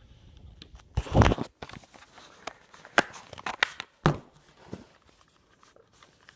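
Handling sounds close to the microphone: a rustling thump about a second in, then scattered sharp clicks and knocks near three and four seconds.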